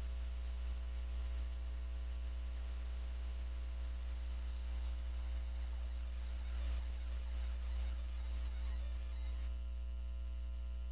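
Steady low electrical hum with faint hiss, the noise floor of the soundtrack.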